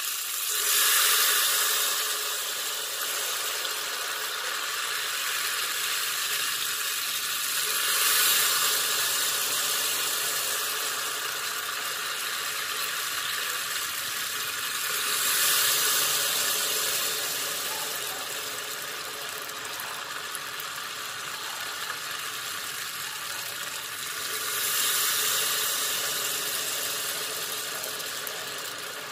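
Hot oil sizzling and bubbling hard as thin ghevar batter is poured in a spoonful at a time over a high flame. The sizzle swells with each pour, four times, and eases off between them.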